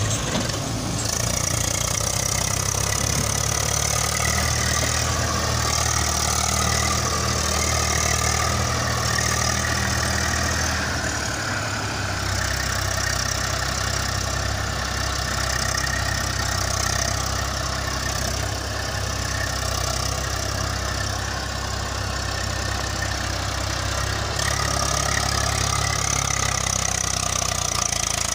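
Eicher 333 tractor's three-cylinder diesel engine running steadily under load while pulling a fully loaded trolley. The engine note shifts about twelve seconds in.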